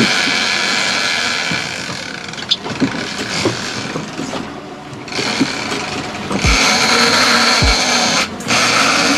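Sportfishing boat under way: steady engine and rushing-water noise, with wind on the microphone, easing off for a few seconds and rising again about two-thirds of the way in. A few short knocks and low thumps over it.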